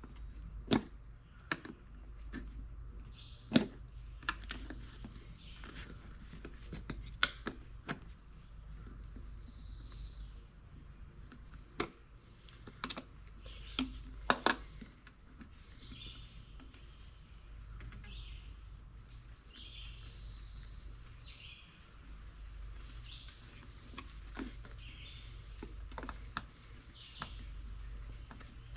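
Scattered clicks, knocks and clinks of hand work on a small wheelbarrow wheel as a tire and tube are fitted onto the rim, irregular and spaced a second or more apart, over a faint steady high tone and a low hum.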